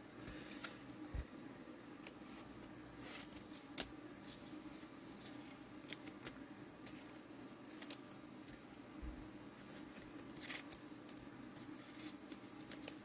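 Faint scattered clicks and light rustles of trading cards and card packs being handled and sorted, over a steady low hum.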